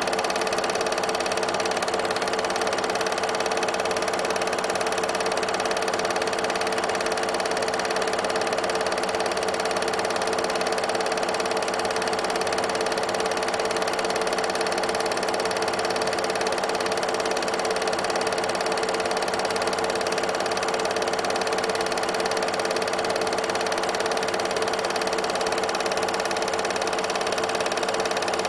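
8mm film projector running: a steady mechanical whir and clatter with a constant hum, unchanged as the picture cuts between scenes.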